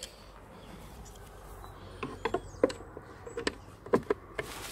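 A handful of light, irregular clicks and taps of a screwdriver working in a plastic wing-mirror housing, starting about two seconds in, over a faint steady hum.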